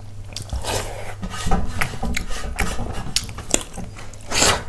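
Close-miked eating sounds: irregular chewing, smacking and scraping clicks, with a louder rasping burst near the end, over a steady low hum.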